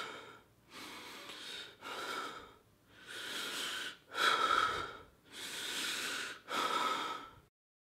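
A man breathing in and out into the microphone, about seven breathy, hissing breaths roughly a second each, with short gaps between them. The breathing cuts off abruptly near the end.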